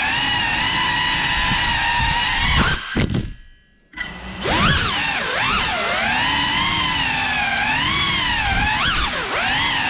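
Brushless motors and ducted propellers of a Cinelog35 cinewhoop FPV drone whining, with the pitch rising and falling as the throttle changes. About three seconds in the whine drops almost to nothing for under a second, then spins back up sharply.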